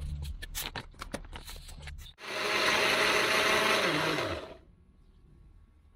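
A few clicks and knocks, then an electric blender runs for about two seconds, grinding shallots, garlic, pepper, coriander and salt into a spice paste, and winds down as it is switched off.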